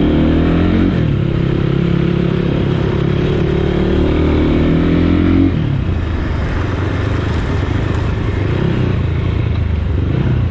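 Motorcycle engine pulling under throttle: the pitch rises, drops at a gear change about a second in, then climbs steadily until the rider eases off about five and a half seconds in. After that it settles into a lower, rougher rumble.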